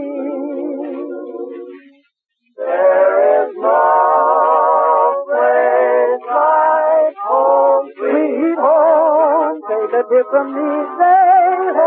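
Singing with vibrato on an old radio recording: a held note fades out about two seconds in, and after a brief pause the singing resumes in long, sustained phrases.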